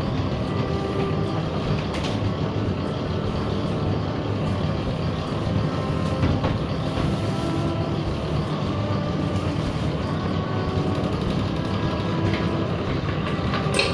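A motor running steadily with a low, even drone and a few faint clicks, without speeding up or slowing down.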